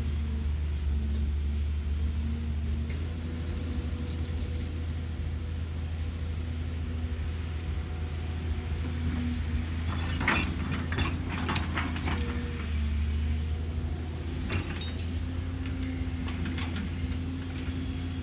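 Caterpillar excavator's diesel engine running steadily at a low hum. A cluster of sharp knocks and rattles comes about ten seconds in, and a few more follow later.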